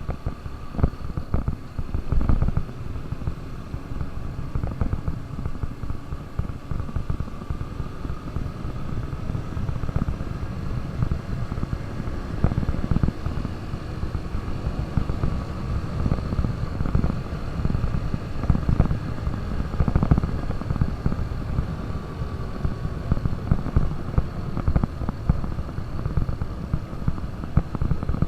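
KTM RC 200 motorcycle's single-cylinder engine running while being ridden at a fairly steady speed.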